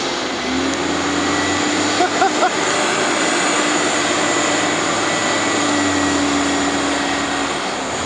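Nova Bus LFS articulated city bus's engine running hard with a steady drone and whine as its drive wheels spin in packed snow, the bus losing traction and barely moving.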